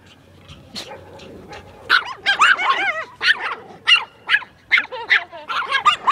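Chihuahua yapping: after a quiet first two seconds, a quick run of short, high-pitched yaps, several a second.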